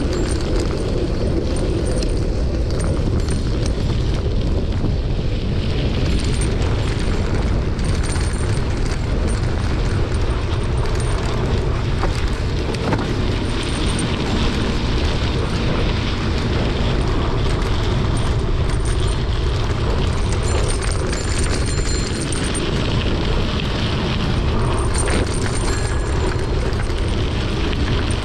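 Steady low rumbling wind noise buffeting the microphone of a camera carried on a moving mountain bike, with faint scattered clicks.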